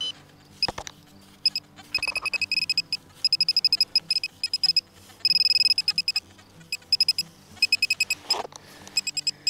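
Handheld metal-detector pinpointer beeping in fast runs of short high beeps as it is swept through the soil, holding a continuous tone for about a second midway when it is right over the target. The target is a small buried shotgun pellet.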